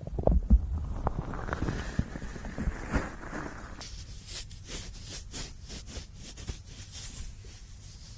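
Stomach gurgling: irregular low rumbles and gurgles, loudest about half a second in, for roughly the first four seconds. Then a run of quick rubbing strokes on a binaural microphone's ear, an ear massage, which fade out near the end.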